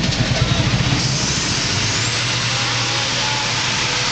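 Motorized rickshaw's small engine running, with a rapid low throbbing at first that settles into a steady hum about a second and a half in, amid street traffic noise.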